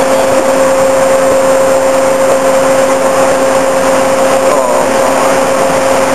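Stryker eight-wheeled armoured vehicle's diesel engine running, a loud steady drone with a constant whine through it, heard from the open hatches on top of the vehicle.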